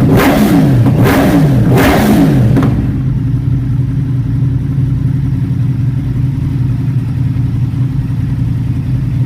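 2014 Yamaha YZF-R1's crossplane inline-four engine blipped through its exhaust, revving up and falling back about three times. About three seconds in it settles to a steady idle.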